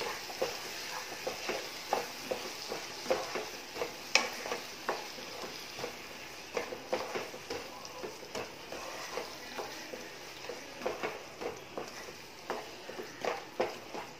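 Wooden spatula stirring thick onion-tomato masala with yogurt in a kadai, in repeated, irregular scraping strokes about one or two a second. The masala sizzles lightly underneath as it cooks on low heat.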